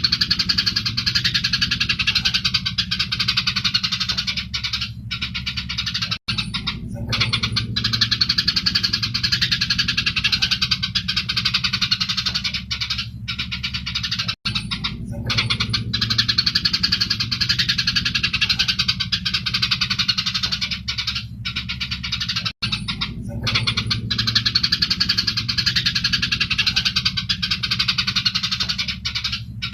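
Eurasian tree sparrows chirping and chattering densely and excitedly, as in a fight, over a low steady hum. The recording loops about every eight seconds, with a brief dropout at each join.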